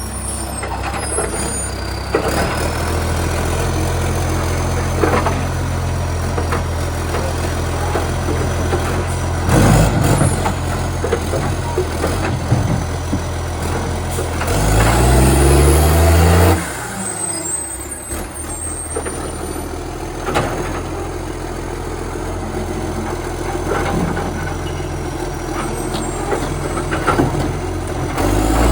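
Garbage truck diesel engine idling loudly through a leaking exhaust pipe. About halfway through it revs up with a rising pitch for about two seconds, then drops back to idle, with a few sharp knocks scattered throughout. The leak makes the revs much louder than normal.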